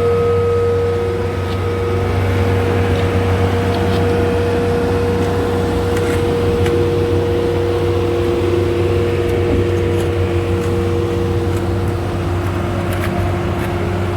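Heavy road-works machinery running steadily: a low diesel engine drone with a steady whine over it, and a second, lower whine joining partway through.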